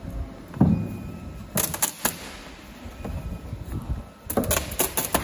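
Handling noise from a large flexible 3D-printed plastic piece and its flat printed base plate being lifted and turned: a dull thump about a second in, then two clusters of sharp clicks and rattles.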